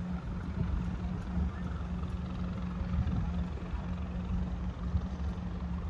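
A steady low engine drone with a constant hum running underneath, like a large vehicle engine running.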